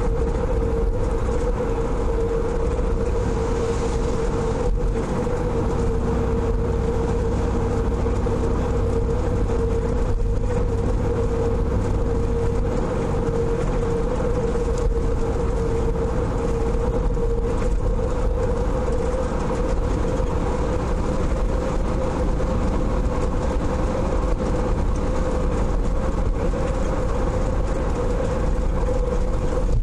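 A car driving along a road, heard from inside the car: steady engine and tyre noise with a constant mid-pitched hum and a low rumble underneath.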